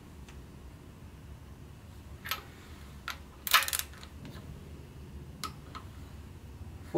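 Sharp metal clicks and clinks of a socket and torque wrench on the cylinder head bolts of a Ford 172 diesel engine, with one louder clatter of metal clicks about three and a half seconds in.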